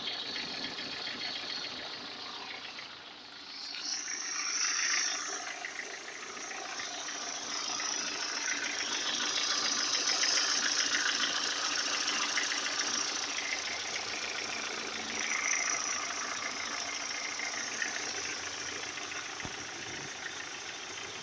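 Lada Priora engine running with a fast, steady metallic ticking and knocking, louder a few seconds in and again around the middle. The owner suspects a knocking piston, with a noisy cylinder head and an oil-pressure lamp that flickers when hot.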